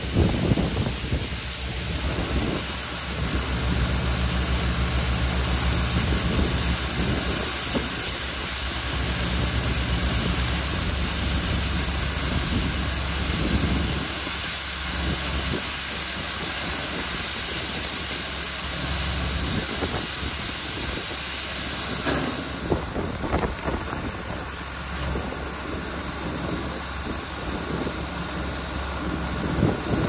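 Shelled corn pouring from a grain cart's unloading auger into a wagon: a steady hiss of falling kernels over a tractor engine driving the auger. The engine hum fades about halfway through, and the hiss thins later on as the flow stops.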